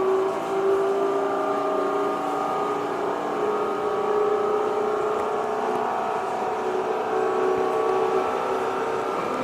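Tokyo Metro 07 series electric train running, heard on board. Its VVVF inverter and traction motors give a whine of several steady tones over the rumble of the running gear.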